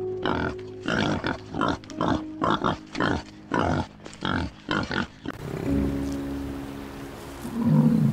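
Wild boars grunting at a feeding trough in quick, even grunts, two or three a second, over background music. About five seconds in the grunting stops and music carries on alone, with a brief low sound near the end.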